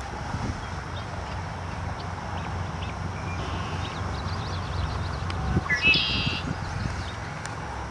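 Wind rumbling on the microphone, with a bird giving one short call about six seconds in, rising in pitch then holding, and fainter chirps a couple of seconds before it.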